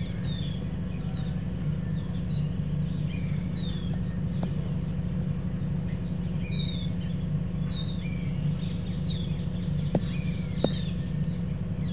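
Small birds chirping, short falling chirps repeated every second or so, over a steady low hum. A few sharp clicks cut in, once near the middle and twice near the end.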